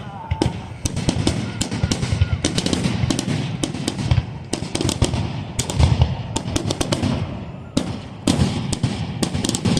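Fireworks grand finale: a rapid-fire barrage of booms and crackling bursts going off one on top of another, dying away just at the end.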